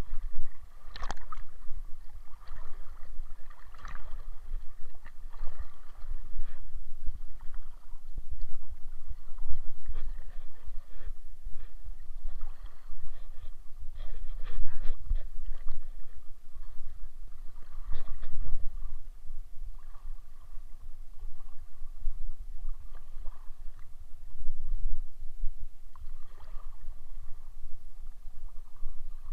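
Water sloshing and splashing irregularly over a steady low rumble.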